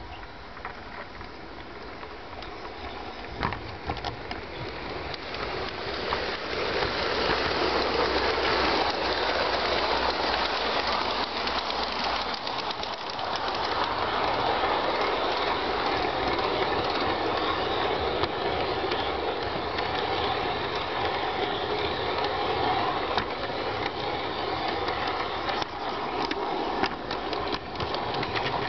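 LGB large-scale model train running on the garden railway's track: a steady rolling rumble of wheels on rail with light clicks over the rail joints, heard from on board. The noise builds about five seconds in as the train gathers speed, then holds steady.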